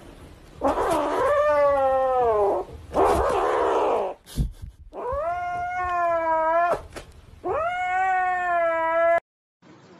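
Kitten yowling: three long, drawn-out calls, each bending up and then sliding down in pitch, with a harsh breathy stretch between the first and second. The kitten is clutching a plush toy as a hand reaches for it, so these read as possessive, warning yowls.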